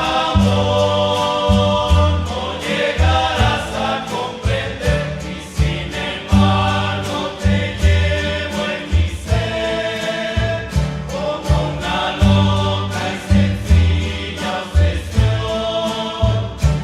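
Rondalla ensemble performing: strummed guitars and bass in a steady rhythm under a chorus of voices holding long chords in harmony.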